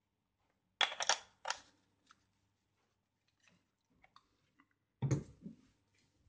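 Hands handling camera gear and packaging on a surface. A quick cluster of sharp clicks and rattles comes about a second in, with faint scattered ticks after it, and a duller knock about five seconds in.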